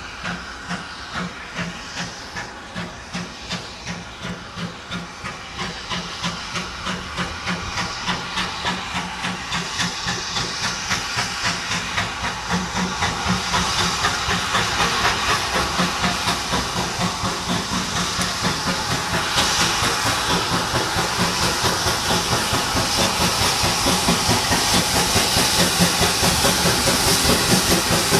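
Steam tank locomotive pulling away with its coaches: regular exhaust chuffs at about two a second, quickening slightly and growing louder as it comes closer, over a steady steam hiss.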